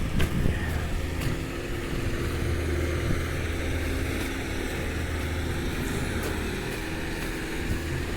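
Sidewalk snow plow's engine idling steadily while it waits.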